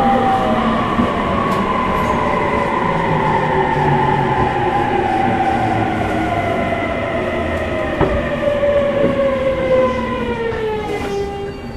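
Interior running sound of a JR East E231-series motor car slowing down: the traction motor and VVVF inverter whine falls steadily in pitch as regenerative braking takes speed off, over the rumble of wheels on rail. The whine cuts out near the end as the train nears a stop.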